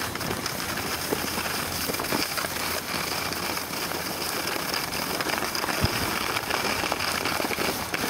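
Skis sliding and scraping over packed snow during a downhill run, a steady noisy rush scattered with small clicks.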